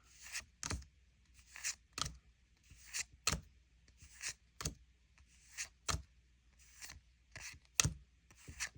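Pokémon trading cards being flipped through one at a time from a freshly opened booster pack: each card gives a short sliding swish followed by a sharp snap, about once every second and a half, six or seven times.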